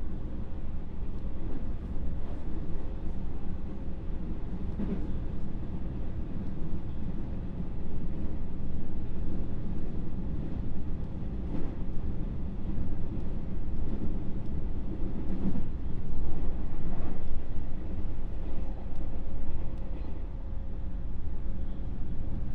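Inside the motor car of a JR West 221 series electric train running at speed: a steady low rumble of wheels on rail, with a faint steady tone and a few faint knocks from the track.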